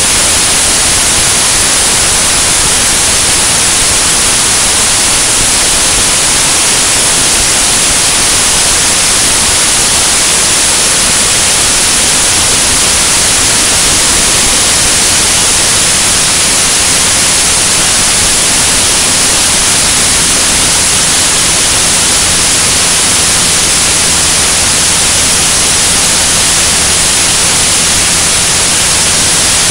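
Loud, steady rush of airflow over an outside-mounted camera's microphone on a single-engine light aircraft in flight, a hiss with no breaks. From about halfway through, a faint low, steady hum of the engine and propeller shows beneath it.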